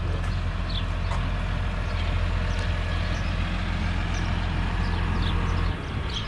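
Heavy vehicle engine running steadily at a constant speed, with a few short high chirps over it; the engine sound drops in level near the end.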